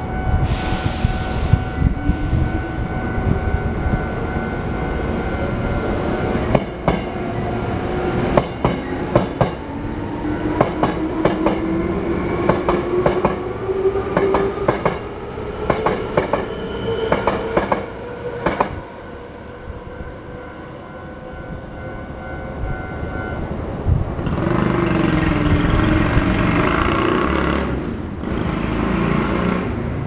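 A Hankyu electric train passes through a level crossing. Its motor whine rises steadily in pitch over most of the passage, and its wheels click over the rail joints. The crossing alarm sounds as a steady ringing tone and stops a few seconds after the train has cleared, and a louder rush of noise follows near the end.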